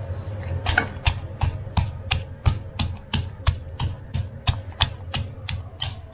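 Garlic and chillies being pounded with a pestle in a mortar: even, steady strikes at about three a second.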